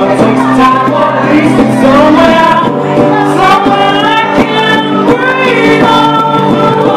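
Live acoustic duo: a woman singing lead over a strummed acoustic guitar.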